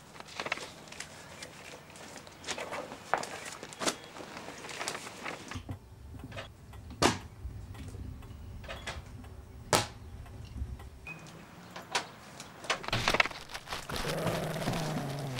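Newspapers rustling and a metal letterbox flap clacking as papers are pushed through a front door. In the middle stretch it is heard from inside the hallway, with a low hum behind and a couple of sharp clacks.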